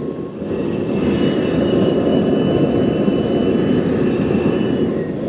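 Propane flame burning in a homemade 50 cal ammo-can fire pit, a steady rushing noise that grows louder about a second in as the flame is turned up at the tank, with a faint high whistle over it.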